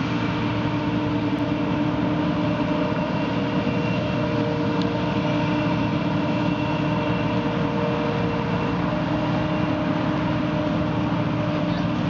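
John Deere combine harvester running, its engine and machinery making a constant drone with several steady tones; one of the middle tones drops out about three-quarters of the way through.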